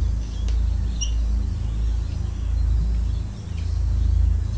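Steady low rumble of background noise, with a few faint, short high-pitched chirps over it.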